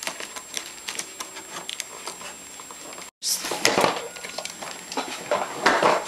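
Gift-wrapping paper being handled and torn off a present: light crinkling ticks, then two louder bursts of rustling and ripping paper. The sound cuts out for a moment about three seconds in.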